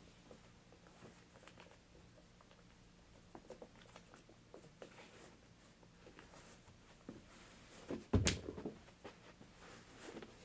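Faint scattered taps and rustles in a quiet room, then a single dull thump about eight seconds in as a sneaker is dropped onto the carpeted floor.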